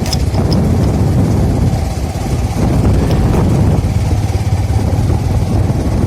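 A vehicle engine running on the move, a steady low rumble with road and air noise over it.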